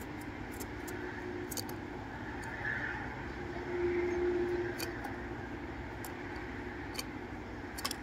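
Steady low background rumble with a few short, sharp clicks scattered through it.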